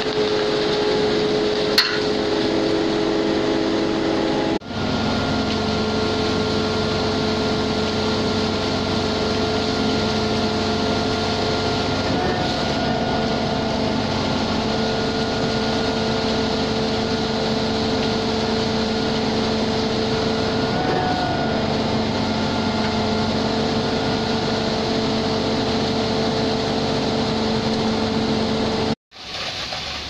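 A truck-mounted concrete pump and a concrete mixer truck running steadily while concrete is pumped: constant diesel engine noise with several held machine tones whose pitch lifts slightly twice. The sound drops out briefly about four and a half seconds in and again near the end.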